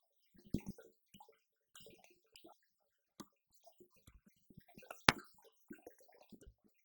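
Electronic drum kit pads (mesh heads and rubber pads) struck by sticks and heard acoustically as dull taps and clicks in an irregular pattern, with one sharp, louder hit about five seconds in.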